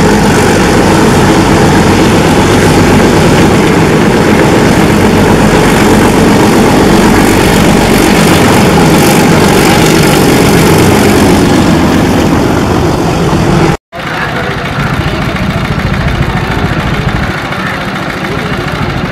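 ALCo diesel locomotive engine chugging hard as the locomotive hauls a train past. About fourteen seconds in the sound cuts abruptly to a quieter ALCo diesel engine on a locomotive running light.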